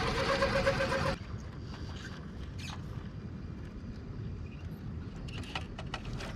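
RC rock crawler running, its brushless outrunner motor giving a steady whine over outdoor noise; about a second in the sound cuts to a quieter low rumble with a few sharp clicks and knocks, mostly near the end.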